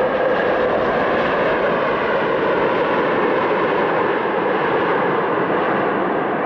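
Passenger jet engines running: a steady, loud rush of noise, with a faint steady tone near the start.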